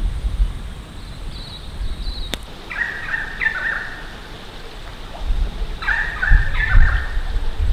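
Wild birds calling: a short high call, then two bursts of chattering calls about three seconds apart, over a low rumble.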